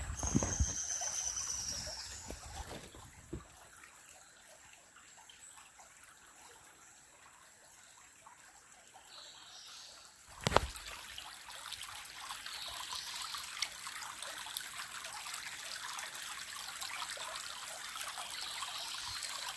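Shallow creek water trickling over stones. A single sharp knock comes about ten and a half seconds in, after which the trickling is steadier and a little louder.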